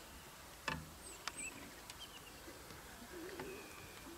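Quiet bush ambience with small birds calling faintly, short chirps that fall in pitch. A sharp knock about two-thirds of a second in, the loudest sound, then a lighter click; a low wavering sound near the end.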